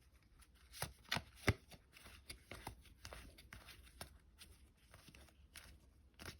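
Paper trading cards sliding and flicking as a stack is flipped through by hand, with three sharp snaps about a second in, then softer rustling.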